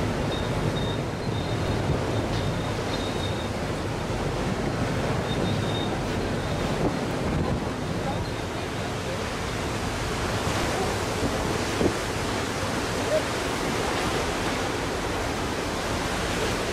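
Steady rush of wind and sea wash on an open ferry crossing, with wind buffeting the microphone.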